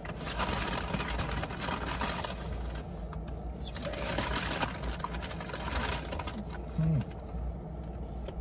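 Crinkling of takeout food wrappers and packaging, with chewing, over a low steady hum.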